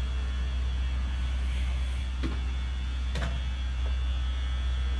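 Alstom WAG-12 12,000 hp electric locomotive moving off slowly: a steady deep hum with a thin steady high whine above it, and a couple of faint clicks midway.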